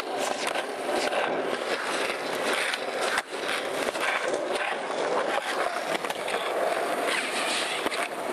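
Skateboard wheels rolling over rough concrete, a steady rushing grind, with a few short clacks of the board.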